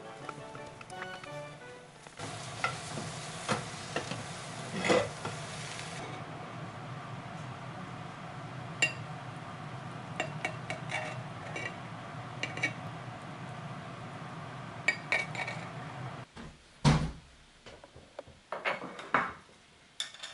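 Egg sizzling in a square tamagoyaki pan, with light taps and scrapes of chopsticks and spatula as the omelette is rolled. Later the sizzling stops and a few clinks of knife and dishes follow, with a heavier knock of tableware set down about 17 seconds in.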